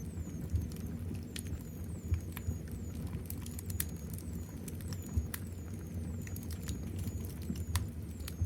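Wood fire crackling, with irregular sharp pops and snaps over a low steady rumble. Short, high, thin squeaks falling in pitch recur about twice a second.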